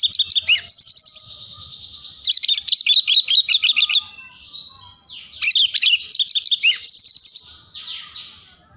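Male Javan bush lark (branjangan, Mirafra javanica) singing: three bursts of rapid, varied chirps, each with a short fast trill, separated by brief pauses.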